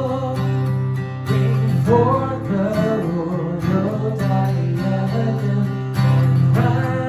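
Acoustic guitar strumming chords under a sung melody: a worship hymn arrangement being performed.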